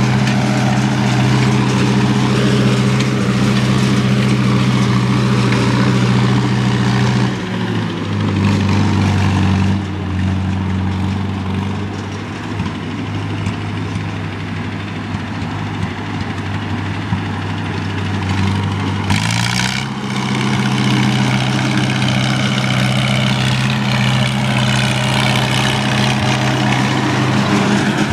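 Farmall H tractor's four-cylinder gasoline engine running steadily while mowing. It drops in pitch and gets quieter about eight seconds in, then comes back up to its earlier pitch near twenty seconds in.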